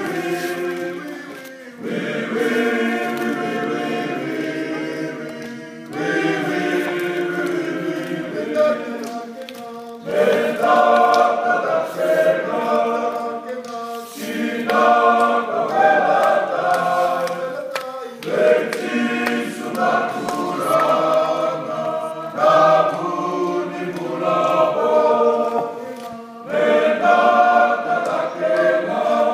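Fiji sevens rugby team singing together as an unaccompanied men's choir in several-part harmony, in phrases that break for a breath about every four seconds.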